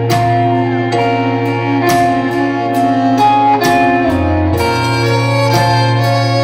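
Live band music: sustained keyboard chords and a steady bass under a drum beat with sharp strokes about twice a second.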